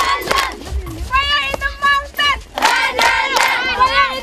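A group of girls singing together in unison in short, held phrases, with hand claps.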